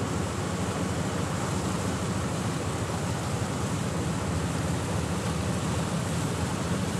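Steady rushing and churning of a passenger ferry's wake seen from the stern, mixed with wind rushing over the microphone.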